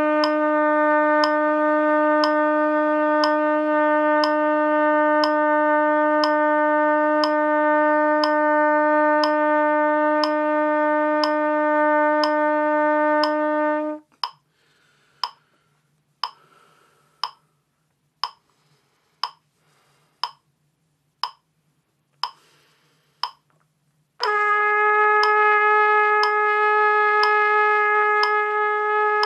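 Trumpet long-tone practice: a steady held low note for about fourteen seconds stops. After a rest of about ten seconds with only a metronome clicking about once a second, a higher note is held steadily. Metronome clicks run under both notes.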